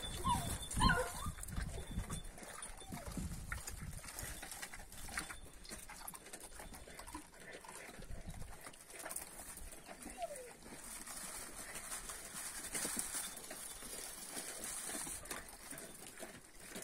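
Dog whining in short high calls, several near the start and a falling one about ten seconds in, over faint rustling.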